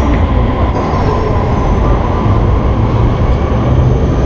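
Steady low rumble and hum of a railway station platform beside a standing electric sleeper train, with a faint high hiss joining just under a second in.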